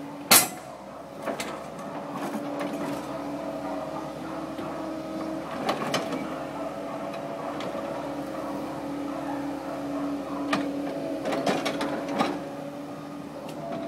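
Kobelco SK135SR excavator's diesel engine and hydraulics running steadily under load as it digs, lifts and swings a bucket of soil, its tone wavering slightly. A loud sharp knock comes about half a second in, and several lighter knocks follow later.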